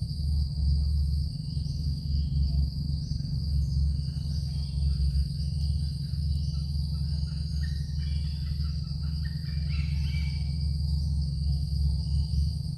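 Night ambience: a steady high insect trill with an even pulse over a steady low hum, with a short patch of high chirping about eight seconds in.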